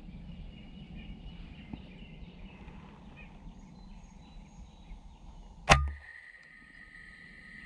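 A single shot from an FX Impact .30 PCP air rifle about three-quarters of the way through: one sharp crack with a short low thump trailing after it, over quiet outdoor background.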